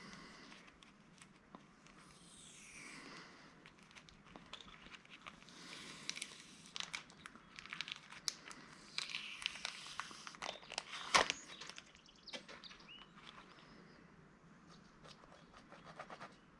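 Hands prying at and handling the small plastic and electronic parts of a handheld retail scanner: scattered scrapes and small clicks, with one louder, sharp click about eleven seconds in.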